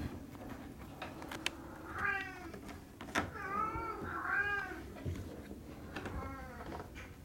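Norwegian Forest Cat kitten mewing: a handful of short, high mews, the most in a quick run about three to five seconds in.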